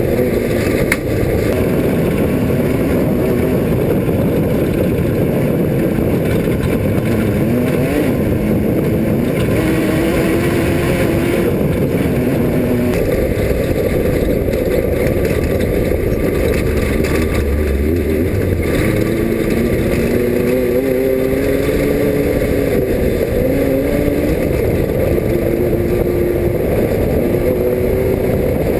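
Off-road race car engine running hard: its pitch repeatedly climbs and then drops back as it revs and shifts, over a steady loud rushing noise.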